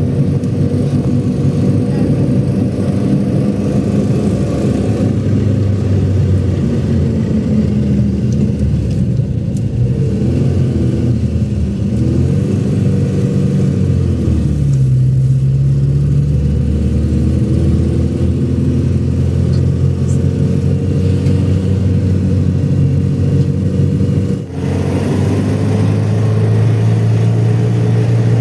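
A motor vehicle's engine running under way, its pitch rising and falling several times as the speed and gears change, with a short drop in level about three-quarters of the way through before it settles at a new steady pitch.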